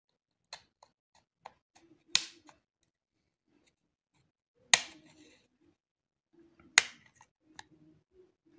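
Plastic retaining clips of a Samsung A20's middle housing snapping loose as a plastic card is worked along the seam: three sharp snaps about two seconds apart, with lighter clicks and card scraping between.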